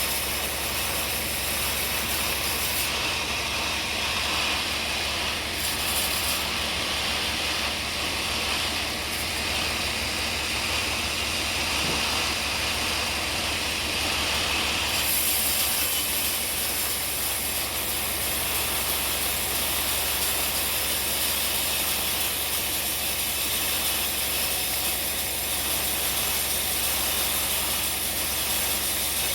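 Sawmill running steadily as it saws through a log, a low engine drone under the hiss of the blade in the wood. The tone of the cutting shifts for a stretch in the first half.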